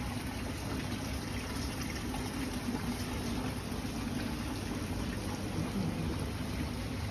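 Water running steadily from decorative tiered fountains, a continuous splashing and trickling.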